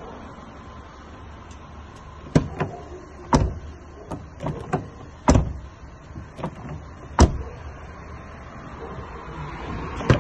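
A string of irregular sharp knocks and clicks, the loudest about seven seconds in, over a low steady hum.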